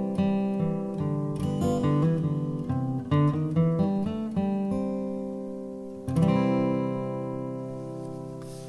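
Acoustic guitar background music: a run of picked notes, then a chord struck about six seconds in that rings on and slowly fades.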